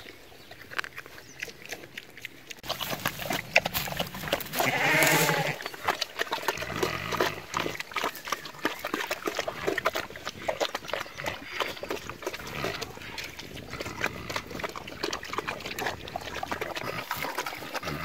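Pigs eating, a fast run of chomping clicks and smacks, with one longer call that rises and falls about five seconds in.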